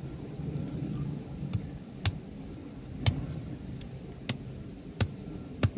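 Kitchen knife point jabbing into the hard, spiky husk of a frozen durian: six sharp knocks at uneven intervals, about one a second.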